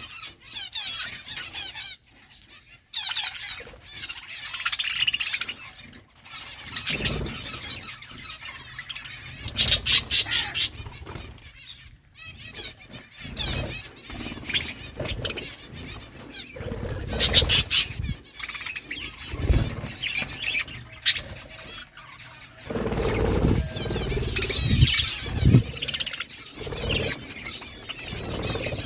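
Budgerigars chirping and chattering, with runs of rapid clicks from seed cracking and bursts of wing flapping and rustling. The flapping and rustling are heaviest near the end.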